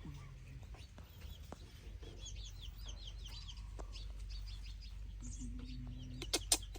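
Birds chirping in quick runs of short falling notes, over a low steady hum, with two sharp clicks near the end.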